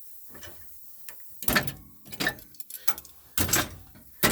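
A few short knocks and clunks, like tools or metal being handled. The loudest come about one and a half seconds in and again about three and a half seconds in.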